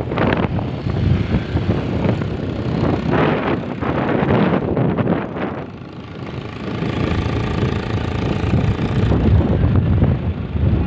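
Wind buffeting the phone's microphone on a moving motorcycle, over the steady rumble of the engine and road.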